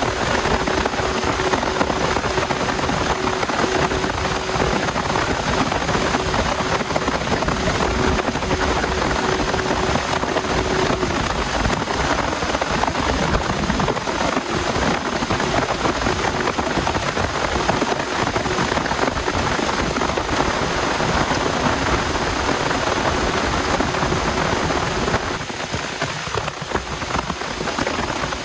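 Heavy rain falling steadily and densely. A faint steady tone runs beneath it and stops about eleven seconds in, and the rain eases slightly near the end.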